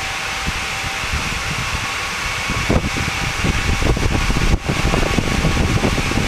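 Fairchild J44-R-24 turbojet running with a steady rushing roar and a faint steady whine. From about three seconds in, an irregular low rumble joins it, with a momentary break about four and a half seconds in.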